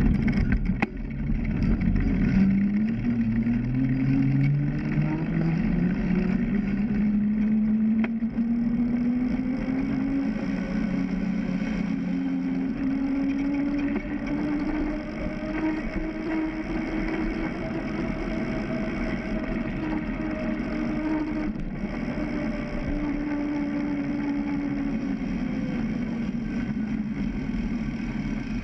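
Road bike riding on asphalt, heard from a camera mounted on its frame: wind and tyre-on-road noise with a hum. The hum rises in pitch over the first several seconds, then holds steady and fades near the end.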